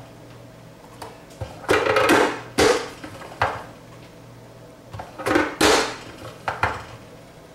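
Hard plastic knocks and clatters from a Vidalia Chop Wizard hand vegetable chopper as it is worked to dice celery. There is a cluster of knocks about two seconds in, and another about five and a half seconds in, when the hinged lid is brought down hard onto the blade grid.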